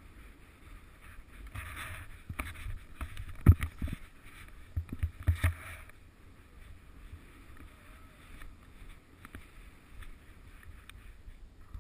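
Skis hissing and swishing through powder snow, with a few sharp low thumps about three and a half to five and a half seconds in, the loudest near the start of them; after that the swishing goes on more quietly and steadily.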